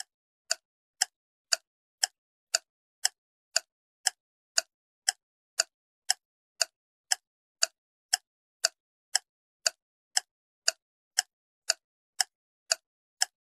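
Countdown timer ticking like a clock, steady at about two sharp ticks a second while the guessing time runs.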